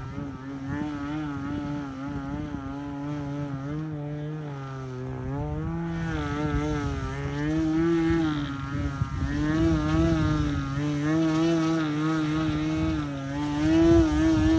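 Homemade RC profile plane's 20cc engine and propeller droning in flight overhead, its pitch wavering up and down as the plane manoeuvres. It grows louder about eight seconds in and is loudest near the end.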